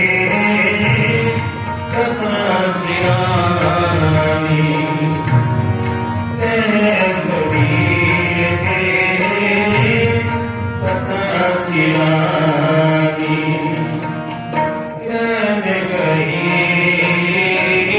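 Shabad kirtan music with tabla: a melodic line rises and falls in long, bending phrases over a steady tabla beat, with no clear words.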